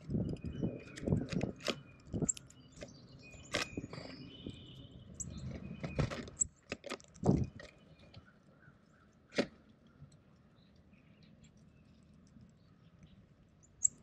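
Northern cardinal pecking and cracking seed on a hanging platform feeder close to the microphone: irregular sharp clicks and knocks with low thuds, busy in the first half and only a few clicks after about 8 seconds.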